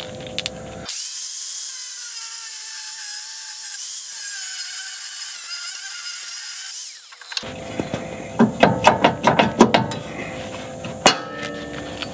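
Angle grinder with a cutoff wheel cutting through a steel weld, a steady high-pitched whine for about six seconds that then stops. A quick run of metallic knocks and clanks follows as the cut piece is worked free.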